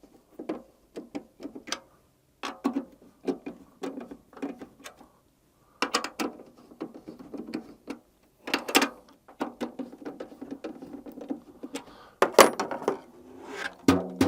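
Drum tension rods on a tom being turned to tighten a Jobeky mesh head back down, giving irregular short clicks and rattles of metal hardware with brief pauses. A few louder knocks come near the end.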